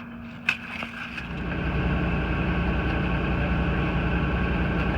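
A sharp click, then an engine comes in about a second in and runs steadily with an even low throb.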